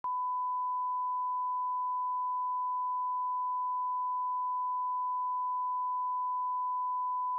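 Steady, unbroken 1 kHz line-up test tone, the reference tone that runs with SMPTE colour bars for setting audio level.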